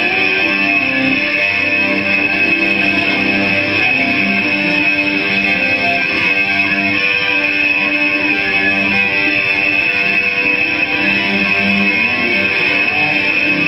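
Amplified cello played as a sound box, shifting low notes under a steady high feedback tone, dense and unbroken.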